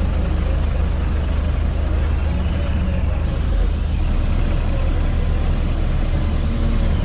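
Semi-truck tractor unit's diesel engine running steadily, with a deep, even low-pitched drone.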